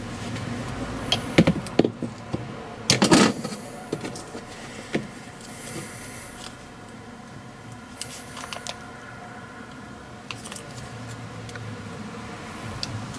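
Scattered metal clinks and knocks from hand tools working a wheel stud into an MGA rear hub clamped in a vise, the loudest a short cluster about three seconds in. A steady low hum runs underneath.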